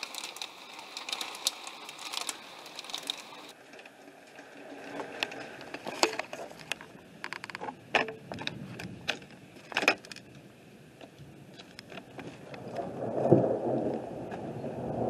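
A jumble of clicks and knocks. Rapid ticking of storm rain against a window for the first few seconds, then camera-handling knocks and footsteps on gravel. A gust of wind buffets the microphone near the end, the loudest sound.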